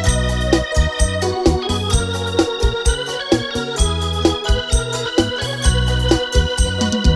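Instrumental music: an electronic organ-type keyboard holding chords over a pulsing bass line and a steady beat.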